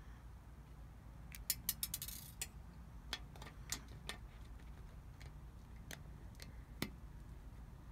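Light, scattered clicks and taps of a small precision screwdriver working the tiny back screws of a Garmin vívofit jr 2 watch. A quick cluster of clicks with a short scrape comes about two seconds in, then single clicks every second or so.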